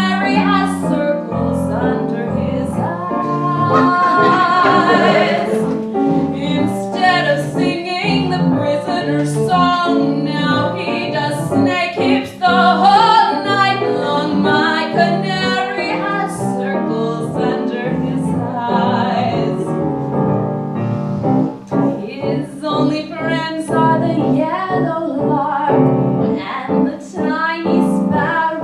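A woman singing a cabaret song with piano accompaniment, her held notes carrying a wide vibrato.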